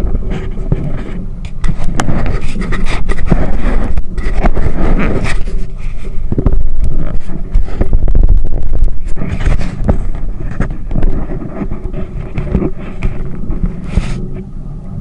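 Tour boat's engine running with a steady low rumble, heavily buffeted by wind and irregular knocks and scrapes on the action camera's microphone.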